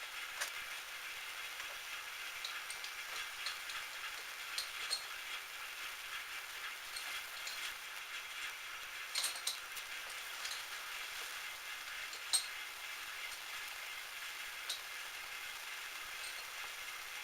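Metal lathe running with a steady whine and hiss, with scattered light metallic clicks and ticks at uneven intervals, the loudest about nine and twelve seconds in.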